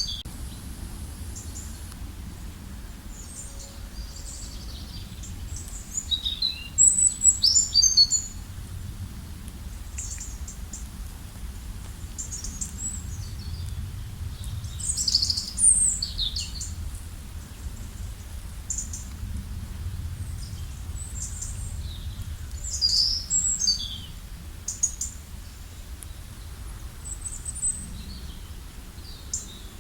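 Songbirds chirping and trilling in short, high bursts, with the loudest clusters about a quarter, half and three-quarters of the way through, over a steady low rumble.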